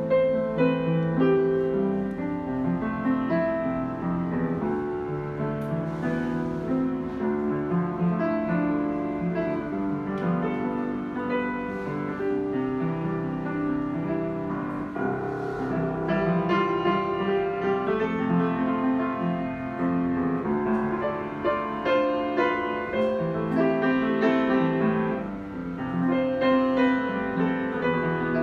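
Yamaha YU3 upright piano being played, a continuous passage of melody over chords as a sound check of the instrument.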